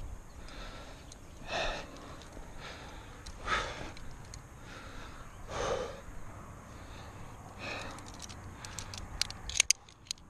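A rock climber breathing hard close to the microphone, a loud breath about every two seconds. A quick cluster of sharp clicks comes near the end.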